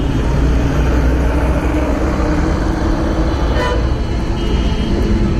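Steady low rumble of a Yamaha motorcycle riding slowly in city traffic, with a short vehicle horn toot about four and a half seconds in.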